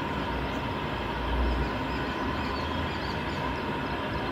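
Outdoor ambience: wind rumbling on the microphone in slow gusts under a steady hiss and a thin steady tone, with small bird chirps scattered throughout.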